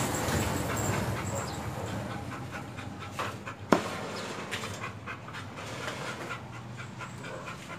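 A dog panting in a run of quick, short breaths. A single sharp click about halfway through is the loudest sound.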